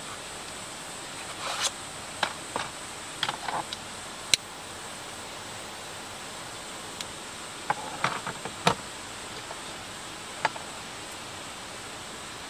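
Light clicks, taps and rustles of belongings being handled and put away while tidying inside a camper van, in scattered clusters over a steady hiss, with two sharper knocks about four and nine seconds in.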